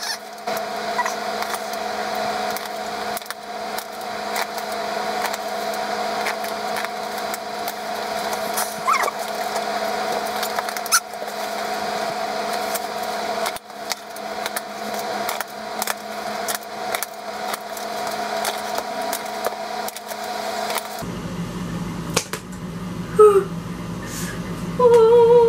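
Cardboard shipping box being opened by hand: packing tape tearing and cardboard crackling and rustling in many short clicks, over a steady hum. Near the end a woman hums a wavering tune.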